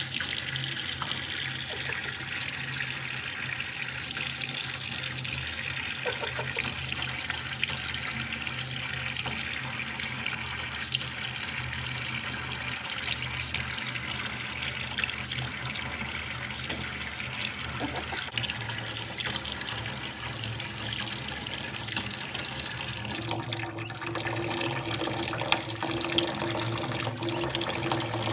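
Kitchen tap running a thin, steady stream of water into a stainless steel sink. A steady low hum joins in near the end.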